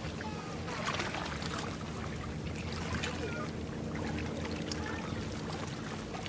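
Riverside ambience: a steady low engine drone from vessels on the river, with water lapping and trickling and short high chirps scattered through it.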